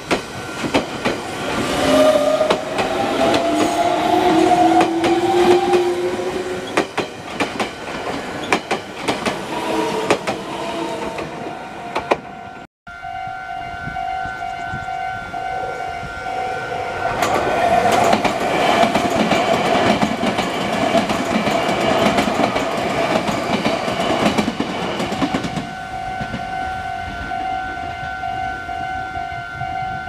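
A red Meitetsu electric train passes close by with wheels clattering over the rail joints, its motor whine rising in pitch as it goes. After a brief cut, a Japanese level-crossing alarm rings steadily, with a swell of train rumble in the middle.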